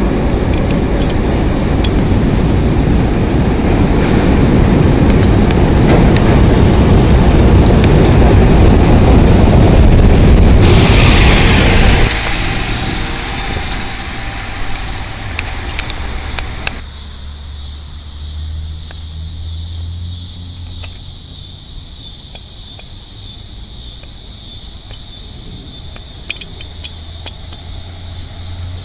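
Chicago 'L' train rolling loudly into a station platform, building in loudness, with a hiss joining near the end of its run. After an abrupt break about twelve seconds in comes CTA Nova LFS city bus and street traffic noise, settling about five seconds later into a quieter steady low engine hum as another bus approaches.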